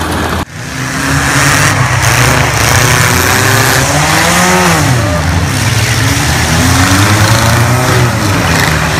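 A motor vehicle engine revving up and down, its pitch rising and falling twice, over a loud steady background noise.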